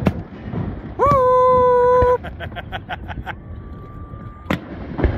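A boat horn sounds one loud, steady blast of about a second, set between firework bangs. A quick run of firework crackles follows, then a fainter, higher horn tone held about a second, and more bangs near the end.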